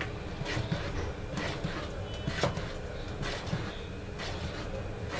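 Wooden spoon stirring a thick bread-cake batter in a large bowl, scraping and knocking against the bowl's sides in an uneven rhythm of about two strokes a second.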